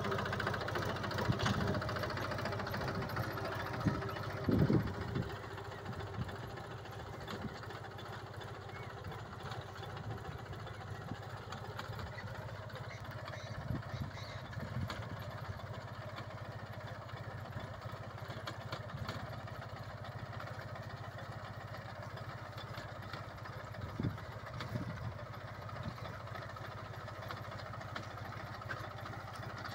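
Captain 250 DI mini tractor's diesel engine running steadily while it pulls a row cultivator through a peanut field, a little louder over the first few seconds.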